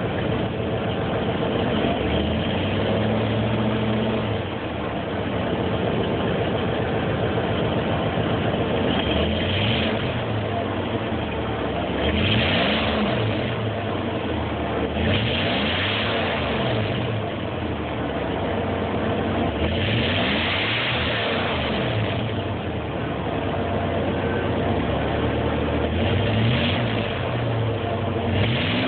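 1989 K5 Blazer engine idling, with the throttle blipped several times; each rev rises and falls in pitch before it settles back to idle.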